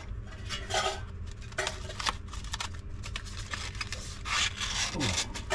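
Hands handling paper cards, a cardboard folder and small objects in a box: irregular rustling and scraping with light knocks.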